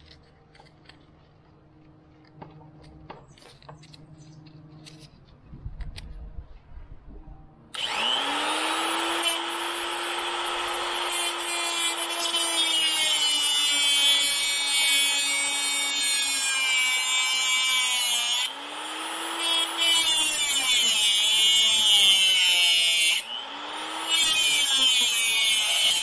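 Corded angle grinder with a cut-off wheel cutting through a dirt bike's steel drive chain, jammed against the front sprocket after being thrown: the motor spins up about eight seconds in and runs with a loud grinding screech, eases off and spins back up twice near the end, then stops. Before it starts, a few light clicks of the chain being handled.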